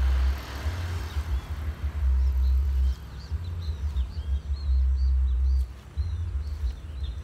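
Wind buffeting the phone's microphone in gusts, with a bird chirping repeatedly through the middle.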